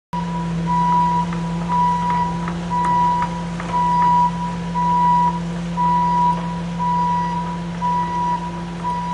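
Excavator moving in reverse: its backup alarm beeping about once every 0.8 seconds over the steady hum of the running engine, with scattered light metallic clicks.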